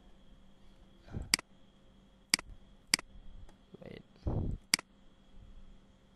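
Computer mouse button clicked four times, sharp single clicks spread across a few seconds, with a short low sound a little after the middle.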